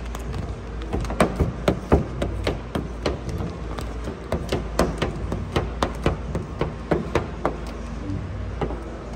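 A quick, irregular series of sharp taps and clicks, roughly two to four a second, over a steady low hum.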